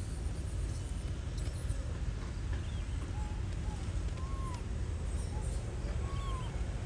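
Steady low outdoor rumble with a few short, arching chirps, about three, four and six seconds in.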